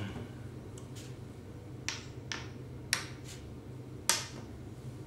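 Xiangqi pieces being set down on the board: several sharp clicks, the loudest about four seconds in, over a low steady hum.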